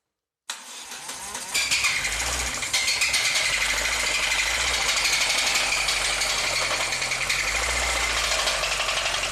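VAZ-2109's 1.5-litre fuel-injected engine is started about half a second in, catches a second later and runs with a rapid, continuous metallic knocking. The mechanic suspects the connecting rods and their bearings, worn by oil starvation from a plastic bag blocking the oil pickup.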